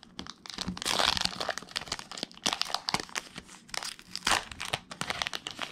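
Foil wrapper of a Pokémon TCG booster pack crinkling and crackling as it is handled and torn open, with irregular bursts of sharp crackle.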